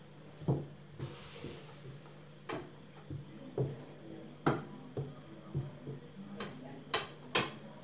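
A blue plastic pipe used as a rolling pin knocking and rolling against the countertop while porotta dough is rolled out thin, in short sharp knocks about once a second, closer together near the end.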